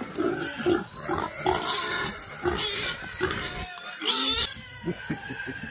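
Pigs calling: a run of short, irregular low grunts, with a couple of brief, higher-pitched squeals about three and four seconds in.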